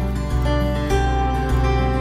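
Background instrumental music: sustained notes over a bass line that changes every half second or so.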